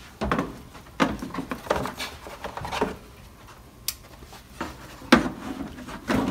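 Hard plastic knocking and clattering as a Formlabs Form 3 resin tank is handled and set down into the printer's tank carrier: a string of sharp separate knocks with light rubbing between, the loudest about five seconds in.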